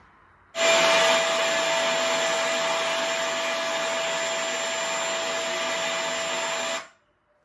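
Recorded vacuum cleaner running, played back through a speaker: a steady rushing hiss with a steady whine in it. It starts suddenly about half a second in and cuts off near the end.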